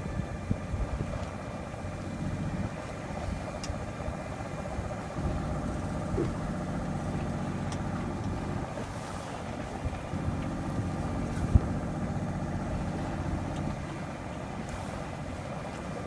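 A sailboat's inboard engine running steadily under way, a low hum, with one sharp knock about eleven and a half seconds in.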